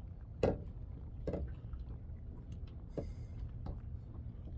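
Water lapping against a kayak's hull in a few short, irregular slaps and knocks, over a low steady rumble.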